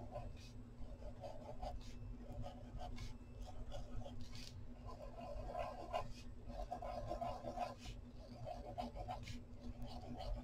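Pen drawing on brown kraft paper: faint scratching strokes in short bursts with brief pauses between them.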